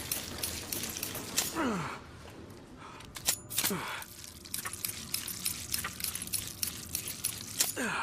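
Sound effect of a fictional pistol: rapid irregular mechanical clicking and rattling, with three falling-pitch sweeps about 1.5, 3.5 and 7.5 seconds in.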